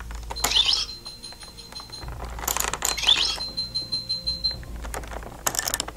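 Ben 10 Omniverse Omnitrix toy playing its electronic sound effects through its small speaker as its button is pressed. Twice, a short warbling high sound is followed by a steady high beep tone of about a second, and a few plastic clicks come near the end.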